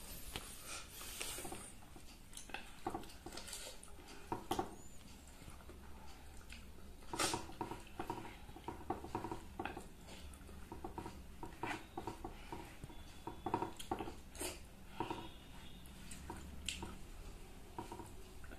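Eating rice by hand off a banana leaf: wet chewing and lip-smacking, with fingers squishing and scraping food across the leaf, in irregular short smacks and clicks.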